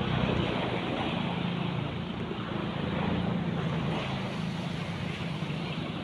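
Steady seaside wind and surf noise with a constant low hum underneath, no single event standing out.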